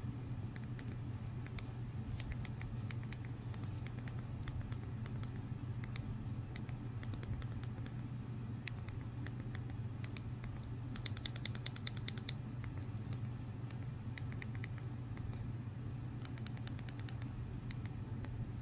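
Button clicks of a Fire TV Stick remote navigating the on-screen keyboard: scattered single clicks, with a quick run of rapid clicks about eleven seconds in. A steady low hum underneath.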